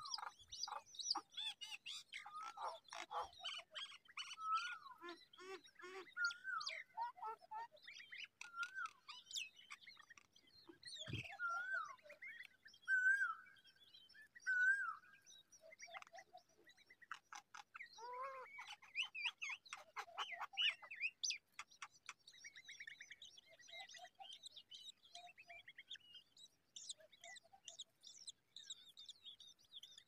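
Shrike nestlings begging at the nest: a busy run of short, high cheeping chirps, with a few clearer, louder whistled notes around the middle.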